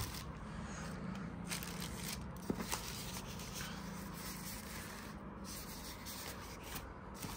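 Faint scraping and rubbing of hands handling speakers and packaging, with a few small clicks, the sharpest about two and a half seconds in.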